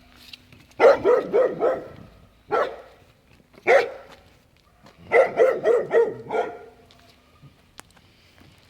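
A dog barking repeatedly: a quick run of about four barks, two single barks, then another run of about five.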